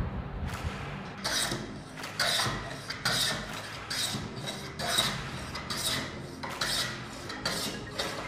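Small handmade wooden hand plane shaving a softwood board, in about ten quick back-and-forth cutting strokes, roughly one a second or a little faster, starting about a second in.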